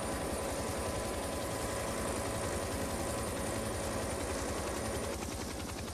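An engine running steadily, with a fast even pulsing low down and thin steady whining tones that fade about five seconds in.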